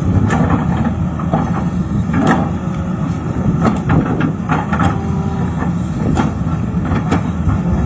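Excavator engine running steadily with a low rumble, with irregular sharp clanks and knocks, several spread over the few seconds.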